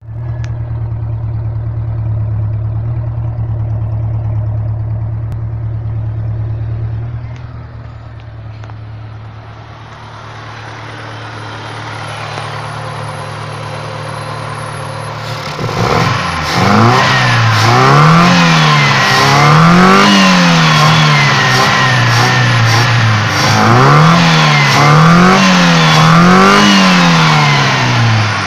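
Kia Pride's carbureted four-cylinder engine idling steadily, recorded at its chrome exhaust tip. From just past halfway it is revved up and let fall back about five times by hand at the carburetor throttle linkage.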